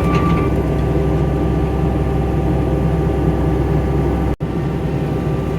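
Skid steer engine running steadily at working speed, with a brief dropout in the sound about four and a half seconds in.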